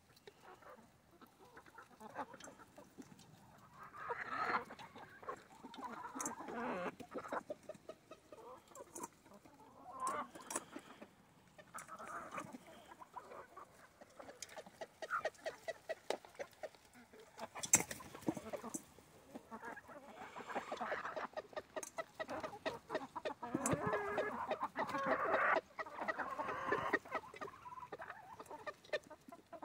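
Backyard chickens clucking in bursts while feeding, with many quick beak taps on a metal pan mixed in. One sharp, loud knock comes a little past halfway.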